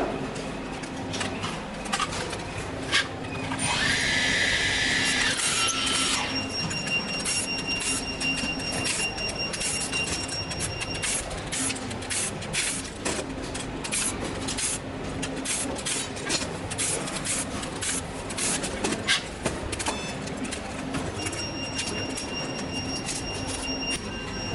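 Irregular small clicks and clatter of plastic drone parts and small tools being handled during disassembly, over a steady low hum. About four seconds in there is a louder rush of noise with a tone lasting roughly two seconds, and a thin high electronic whine comes and goes.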